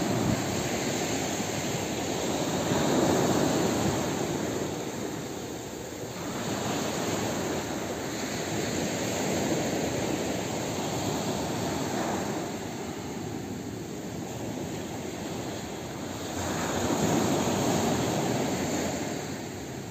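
Sea waves breaking and washing up a sand beach, the surf swelling and fading in slow surges every six to eight seconds.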